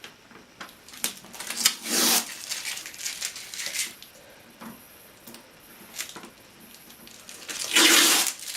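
Protective plastic film being peeled and crinkled off a computer case, in irregular rustling, tearing bursts, the loudest and longest near the end.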